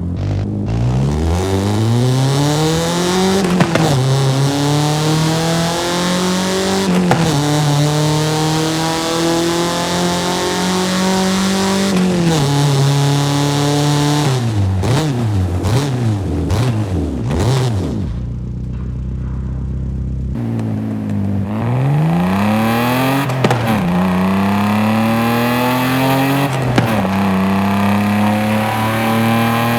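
BMW car engine accelerating hard through the gears, its pitch climbing and then dropping at upshifts about every three to five seconds. Around the middle it shifts down with several quick throttle blips, settles briefly at a low steady idle, then pulls up through the gears again.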